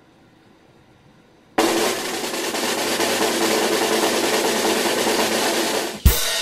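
Snare drum roll that starts suddenly about a second and a half in and runs steadily for about four seconds, ending in a bass drum and cymbal crash that rings on.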